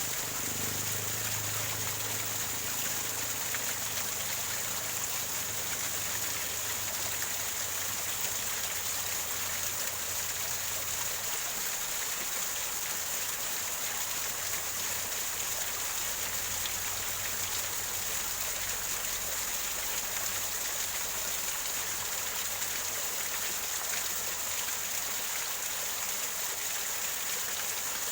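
Small waterfall splashing and gurgling over rocks: a steady, even rush of water with no breaks.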